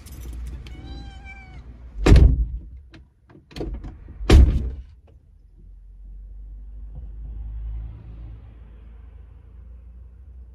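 A kitten meows once from inside its pet carrier, then two car doors slam shut about two seconds apart, with a few small knocks between them.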